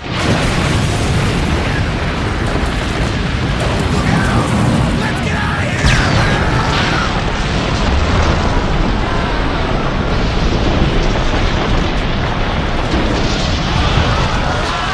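Animated-film sound effects of a concrete bridge collapsing: a sudden explosive boom at the start runs straight into a loud, continuous rumble of crashing debris. Voices cry out now and then over the rumble.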